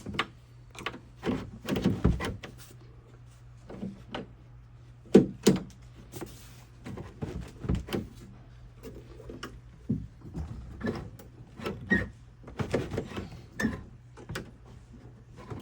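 Irregular metallic clicks and clunks of a Jeep TJ Wrangler door latch and its linkage rod being worked by hand, the loudest knock about five seconds in. The latch is binding on its cut-up plastic coating and the rod is out of adjustment. A steady low hum runs underneath.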